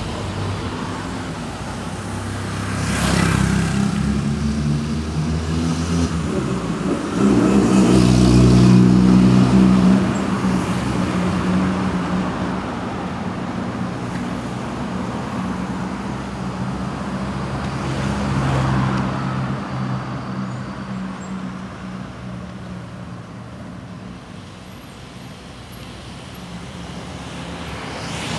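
City street traffic: a motor vehicle engine running steadily, with other vehicles rushing past several times. The loudest stretch comes about seven to ten seconds in.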